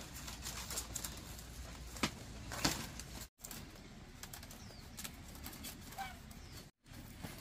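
Thin bamboo strips rustling and clicking as they are threaded and pulled through a hand-woven basket, with a few sharper snaps. A few faint bird chirps come in the second half, and the sound cuts out briefly twice.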